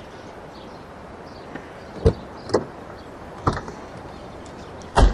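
Doors of a Nissan pickup truck being opened and shut: a few sharp clicks and knocks spread over the seconds, the loudest a heavy thud near the end.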